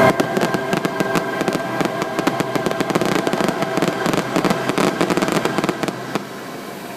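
Fireworks crackling and popping in a dense, rapid barrage that thins out after about six seconds.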